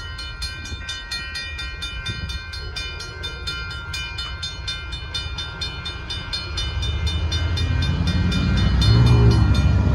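Grade-crossing warning bell ringing fast and steadily, over the low rumble of the Amtrak passenger train passing the crossing; the rumble swells louder near the end.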